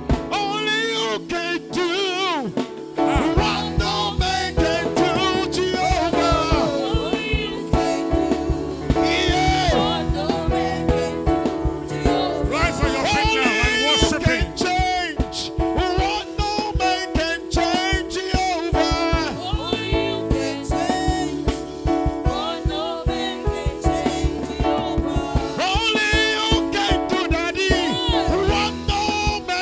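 Live gospel praise music: a band with a steady drum beat and sustained keyboard chords, with voices singing a wavering melody over it.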